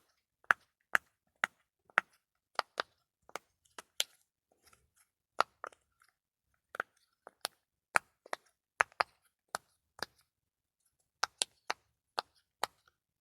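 Sharp, crisp clicks from a handheld clicky ASMR trigger, about two a second in an uneven rhythm with a few short pauses.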